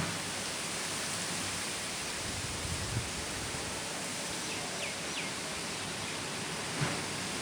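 Steady rushing noise of a wind storm, with a couple of faint short chirps about five seconds in.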